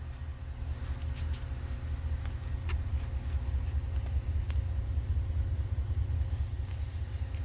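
Low rumble of an approaching freight train's diesel locomotives, still far off, growing slowly louder, with a faint steady hum and a few faint clicks.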